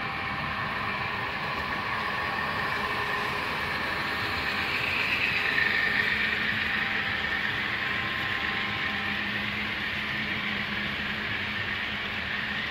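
Model freight train rolling past on the layout track: a steady hiss and rumble of its wheels and cars, a little louder about six seconds in as the cars pass closest.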